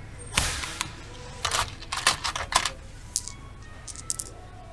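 Small metal hex nuts and a bolt clicking and clinking as they are picked out of parts bins and handled, a string of short sharp clicks with a few closely grouped ones in the middle.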